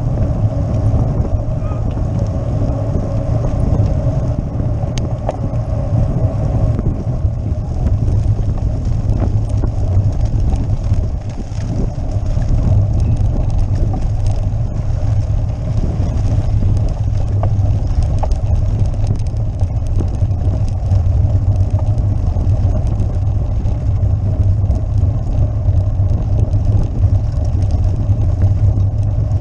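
Road bike riding over cobblestones, heard through a camera mounted on the bike: a steady, heavy low rumble with a dense, continuous rattle from the shaking on the stones.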